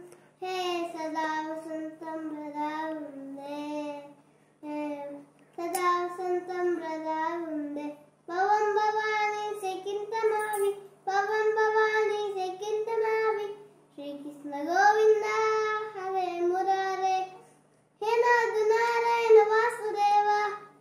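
A young boy sings a devotional song unaccompanied, in about seven long, held phrases with short breaths between them. A faint steady hum runs underneath.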